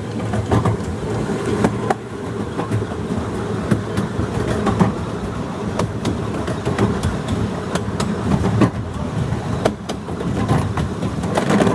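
Miniature railway train carriage running on 7¼-inch gauge track, heard from on board: a steady low rumble of wheels on rail, with frequent irregular clicks and clacks over the rail joints.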